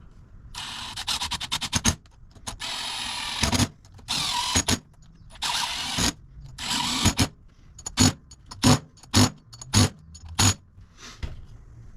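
Hand-tool work on a car's front wheel hub: first a quick run of ratchet-like metal clicks, then several longer scraping passes, then a series of five sharp metallic knocks a little over half a second apart.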